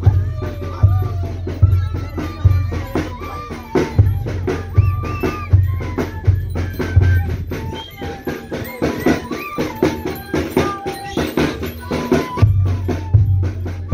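Andean festival band playing live: flutes carry a wavering melody over a large bass drum beating roughly once every 0.8 s and a busy snare drum. The bass drum drops out for several seconds past the middle and comes back near the end.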